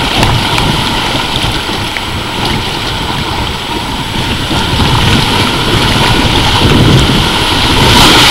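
Water rushing under an inflatable raft tube as it slides down a water-slide flume, with wind buffeting the microphone; the noise grows louder near the end.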